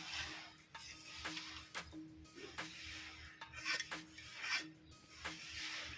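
Scratchy rubbing strokes on a metal cable tray, repeated unevenly several times, as a right-angle line is marked out on it.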